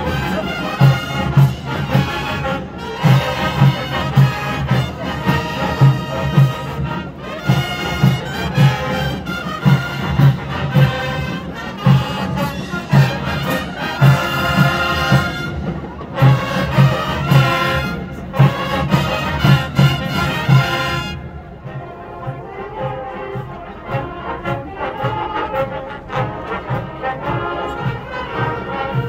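Student marching band playing brass, trumpets and trombones, over a steady drum beat. About three-quarters of the way through, the loud brass drops back and a softer passage continues over the drums.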